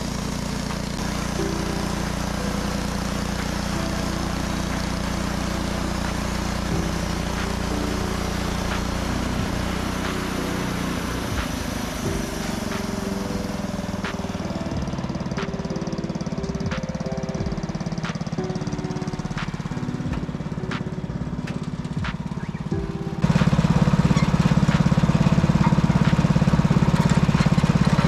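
Portable sawmill's small gasoline engine running steadily. Its sound shifts about ten seconds in and becomes louder about two-thirds of the way through, as under heavier running or cutting.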